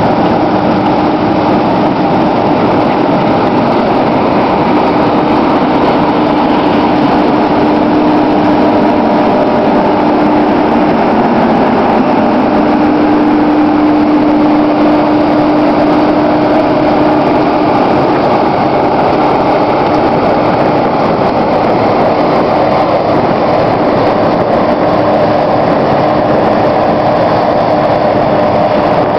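Claas Lexion 570 combine harvester running steadily while harvesting barley: a dense, even drone of engine and threshing machinery with a steady hum through it.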